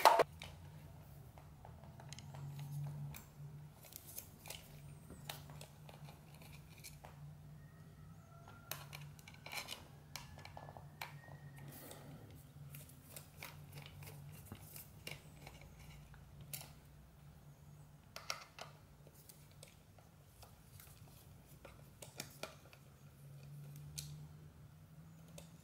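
Faint, scattered small metallic clicks and scrapes of a screwdriver turning screws out of the metal chassis of a Sharp GF-700 boombox's cassette transport, over a low steady hum.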